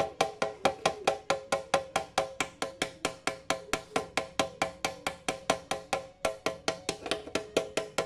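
A small hammer taps rapidly and evenly, about five blows a second, on the aluminium evaporator plate of a one-door fridge, and the metal rings under the blows. The blows are flattening the punctured refrigerant channel to seal off that line before welding.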